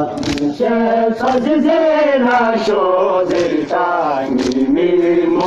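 Men chanting a Balti noha, a Muharram lament, with a melody that rises and falls in long sung phrases. Sharp strikes fall roughly once a second, keeping time with the chant.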